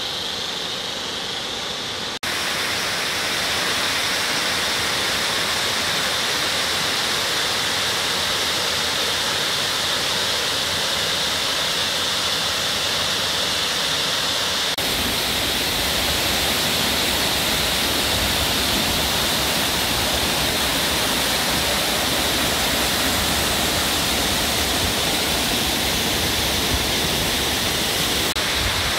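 Steady rush of Kondalilla Falls and its creek running in heavy flow after a week of rain. The sound changes abruptly twice, and it grows fuller and deeper about halfway through.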